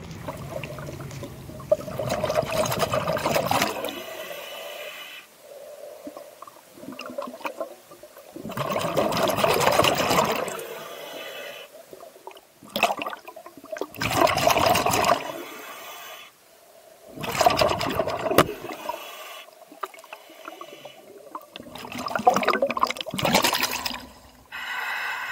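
Scuba diver's exhaled air bubbling up through the water, heard underwater: rushing bursts about every four to five seconds, with quieter pauses between.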